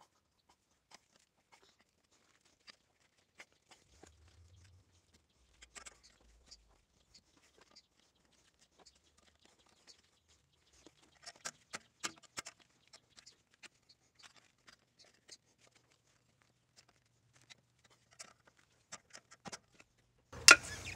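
Faint, scattered clicks and scrapes of a flat screwdriver prying a rear axle seal out of the axle housing, metal on metal. The clicks bunch up around eleven to thirteen seconds in, and a sharper click comes near the end as the seal comes free.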